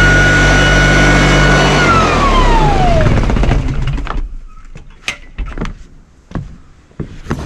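Electric deck sander's motor running steadily with a high whine, then switched off about two seconds in, the whine falling in pitch as the machine spins down and fades within about a second and a half. A few short knocks follow.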